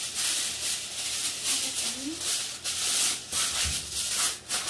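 Aluminum foil crinkling as it is pulled off the roll and handled, in a quick run of rustling bursts.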